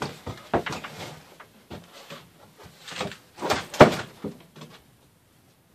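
Wooden knocks and thumps from a bench and plank floor as a person gets up and moves about, scattered at first, then a denser cluster with the loudest thump a little under four seconds in.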